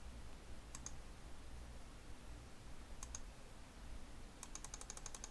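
Faint computer mouse clicks: a click about a second in, another about three seconds in, then a fast run of repeated clicks near the end.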